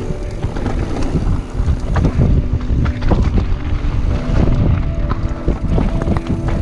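Wind buffeting the camera microphone while a mountain bike rattles and its tyres crunch over a rocky dirt trail at speed, with many small knocks and clatters.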